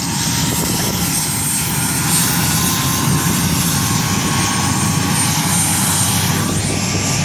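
Military transport helicopter standing on the ground with its turbine engines and rotor running: a steady, loud drone with a thin high whine over it.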